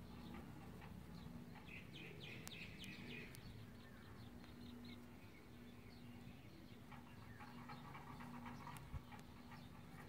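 Faint birds chirping over an otherwise near-quiet background, in two short spells, with a faint low hum that comes and goes.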